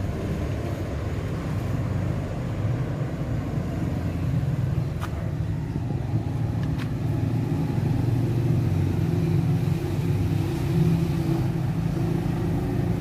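A steady low engine rumble, with a faint humming tone that becomes clearer about halfway through, and a couple of light clicks.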